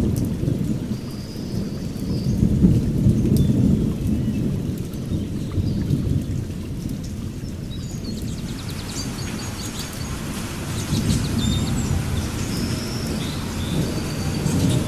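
Thunderstorm: low thunder rumbling and rolling on and on under steady rain, the rain's hiss growing fuller about halfway through. Short high chirps sound now and then above the rain.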